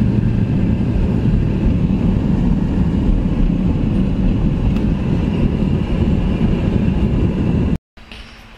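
Steady engine and road rumble heard from inside a vehicle's cabin while driving. It cuts off abruptly near the end, giving way to a much quieter outdoor background.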